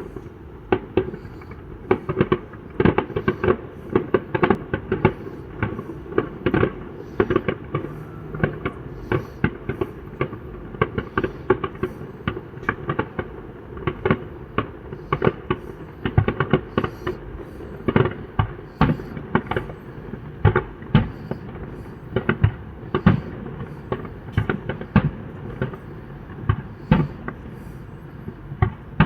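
Fireworks display going off: an irregular run of sharp bangs, often several a second, over a steady background noise.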